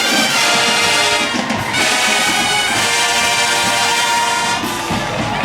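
Marching band brass section playing loud sustained chords, trumpets and trombones to the fore.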